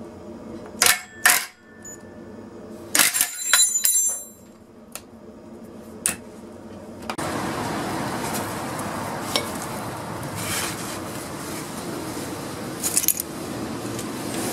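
Sharp metallic clinks and clatters, a ringing cluster of them about three seconds in. Then, about seven seconds in, a steady whirring noise starts suddenly.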